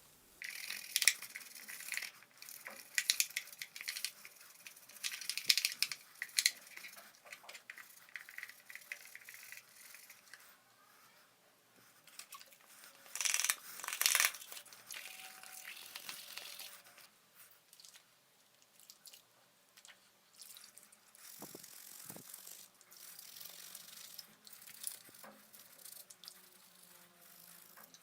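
Blender parts being handled and worked on by hand: irregular clicks and rattles with short scraping bursts, busiest in the first ten seconds and loudest about thirteen seconds in, then quieter handling.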